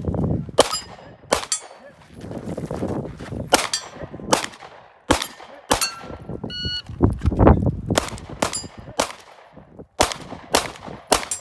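A string of about a dozen gunshots fired in quick succession, mixed with steel targets clanging and ringing as they are hit.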